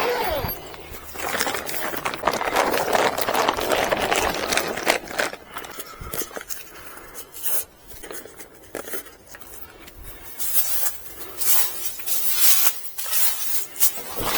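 Plastic greenhouse cover rustling and crinkling as it is handled, with many scattered clicks and crackles and brighter rustles near the end.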